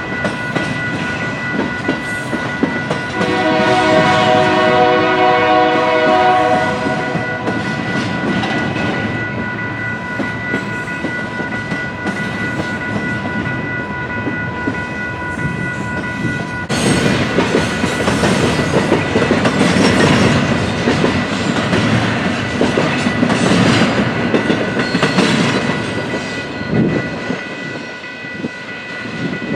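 Freight train rolling past with wheel and rail noise, its diesel locomotive horn sounding once for about four seconds a few seconds in. A steady ringing, likely a grade crossing bell, runs under it and stops suddenly a little over halfway through, after which the rolling noise of the passing cars grows louder.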